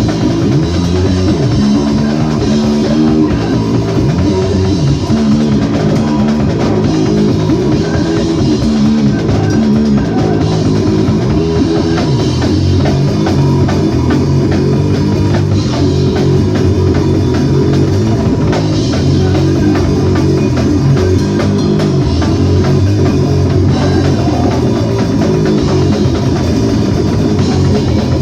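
Rock band playing live, loud and without a break: drum kit and guitar.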